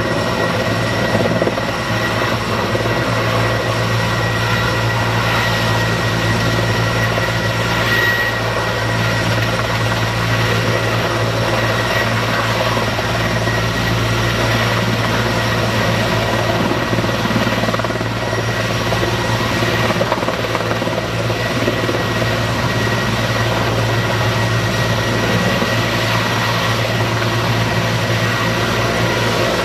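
Sikorsky Skycrane heavy-lift helicopter hovering low with its snorkel dipped in a water tank, taking on water for firefighting. Its rotor and twin turbines run at a steady loud level, a deep rotor hum under a constant high turbine whine.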